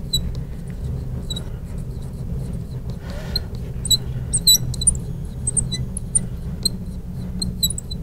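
Marker squeaking on a glass lightboard as words are handwritten: short, high-pitched chirps in quick irregular runs, thicker in the second half, over a steady low hum.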